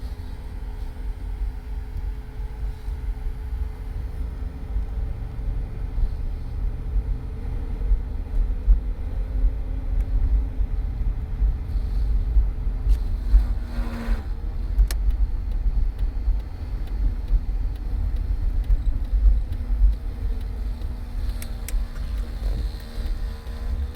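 Cadillac running, a heavy low rumble with a steady hum over it and a brief change in the sound about halfway through; the owner notes a strange noise in it.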